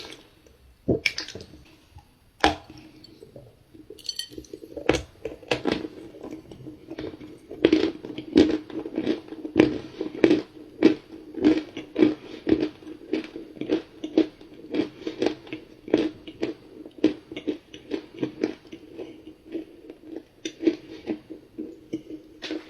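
A person biting into and chewing a dry, crumbly cookie chunk close to the microphone. A few sharp crunches come first, then steady, even chewing strokes at about two a second.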